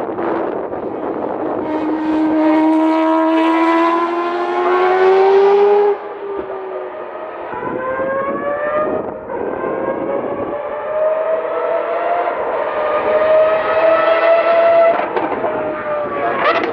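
Mazda 787B's four-rotor rotary engine under hard acceleration, its pitch climbing, then cutting off abruptly about six seconds in as the driver lifts or shifts. It then climbs again through the gears, dipping briefly near the end.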